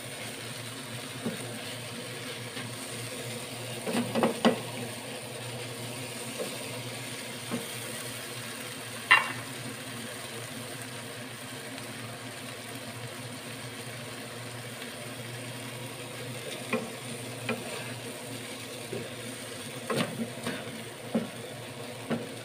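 Sliced green chillies and anchovies sizzling in a frying pan as the last of the added water cooks off, with a wooden spatula stirring and scraping and knocking against the pan now and then. One sharp ringing clink about nine seconds in.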